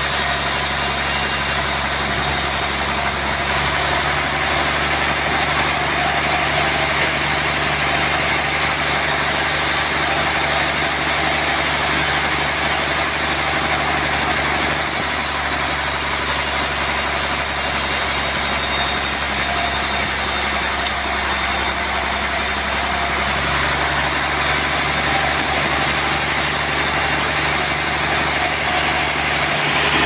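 Large band sawmill running steadily while it saws lengthwise through a big trembesi (rain tree) log. It makes a continuous machine hum, and a high hiss comes and goes a few times.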